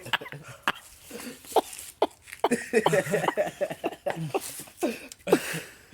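Short, irregular bursts of non-speech voice, several in a row with falling pitch, from the people around a kid doing the cinnamon challenge.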